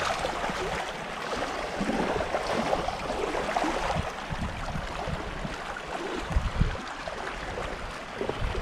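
Shallow seawater sloshing and lapping around a person wading ankle-deep, with a couple of brief low thumps about six and a half seconds in.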